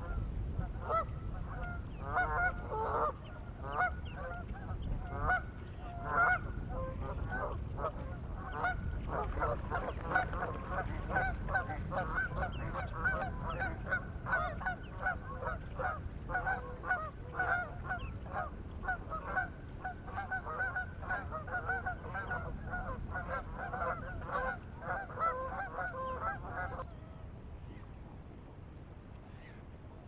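A flock of waterfowl calling, a dense run of short honking calls one on top of another, which stops about 27 seconds in.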